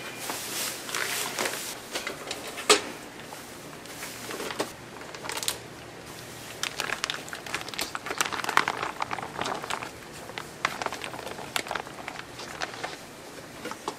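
Plastic bags of marinated raw chicken crinkling and rustling in irregular bursts as they are lifted out of a cooler and squeezed empty into a stainless steel bowl, with scattered sharp clicks, the sharpest about three seconds in.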